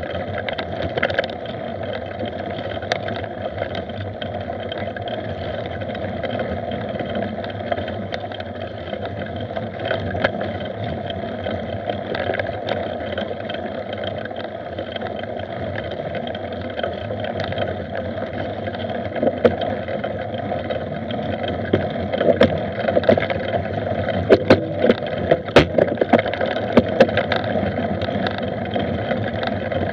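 Mountain bike ridden fast along a bumpy dirt forest trail: a steady rush of wind and tyre noise with rattling knocks from the bike over the bumps, which come thick and fast in the last several seconds.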